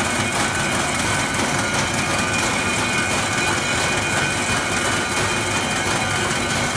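Rubber deflashing machine running: a steady, loud mechanical noise with a faint high whine held in it.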